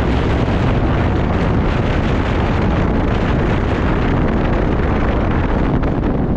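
Wind rushing over the microphone of a rider on a moving steel roller coaster, a loud steady roar of air with the train's rumble on the track underneath.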